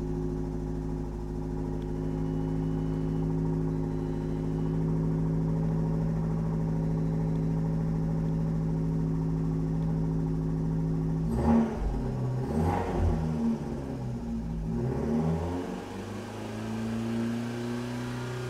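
Fiat 500 Abarth's 1.4 turbo MultiAir four-cylinder engine idling steadily, then revved in a few quick blips about eleven seconds in before settling back to idle. The engine is running somewhat loud and unhappy, which the owner guesses is its bucket lifters still a bit empty of oil after the car sat after a rollover.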